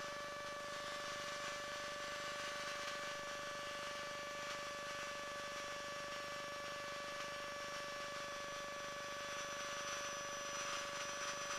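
Challenger II ultralight's engine running steadily at about 6,000 RPM in a climb, heard muffled through the aircraft intercom as an even hum with a high steady whine.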